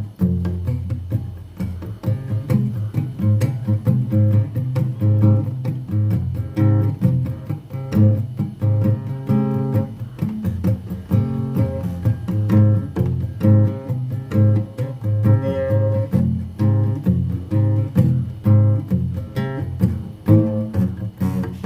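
Instrumental music: acoustic guitar playing plucked notes over a bass line at a steady pulse.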